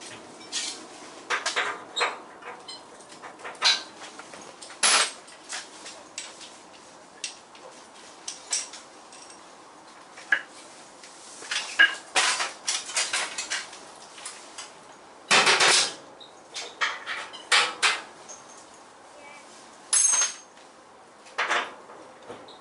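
Irregular metallic clanks and clatters of tools and steel panels being handled against a car's bare steel body shell, with a longer rasping burst a little past the middle.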